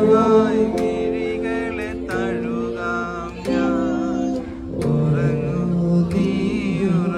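A song playing, with guitar and a singing voice.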